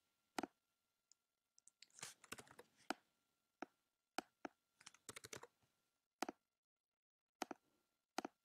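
Faint computer keyboard keystrokes and mouse clicks: single taps and short quick runs of keystrokes, as numbers are typed into a dialog and buttons are clicked. A faint steady thin tone runs underneath.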